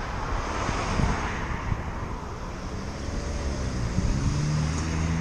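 Road traffic at an intersection: tyre noise from a passing car swells about a second in, then the engine hum of a small sedan rises near the end as it drives close past.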